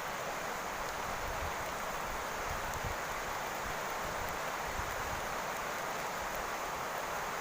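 Steady rain falling on a roof, an even hiss with a few faint ticks of drops.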